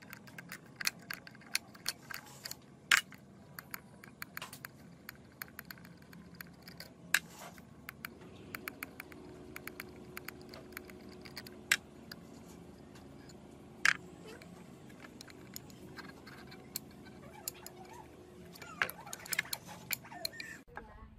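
Steel engine parts and a hand tool clinking and scraping against each other and the aluminium crankcase as a small four-stroke engine's crankshaft and connecting rod are worked loose: scattered sharp metallic clicks, a few of them much louder, with a busier cluster near the end.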